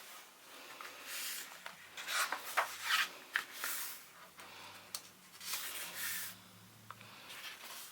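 Pages of a picture book being handled and turned: paper rubbing and rustling in several short bursts.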